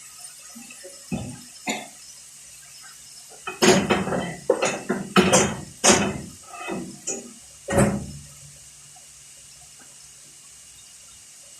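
Kitchen work at the pan and sink: a few light knocks, then about four seconds of irregular clattering and splashing of cookware and water, over a steady low hum.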